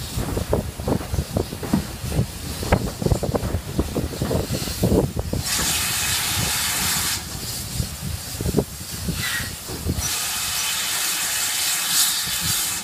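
Steam locomotive hissing steam: a loud spell of about a second and a half starting about five and a half seconds in, then a steady hiss from about ten seconds on. Before and under it, the low rumble and knocking of the slowly moving train and wind buffeting at the open window.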